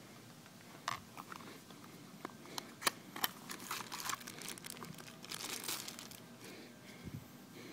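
Thin plastic bag crinkling as a folding knife is unwrapped from it, with a few sharp clicks along the way, the loudest about three seconds in.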